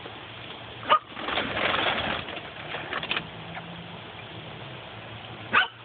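Quail in a coop calling: two loud, short calls, one about a second in and one near the end, with a brief stretch of rustling noise after the first.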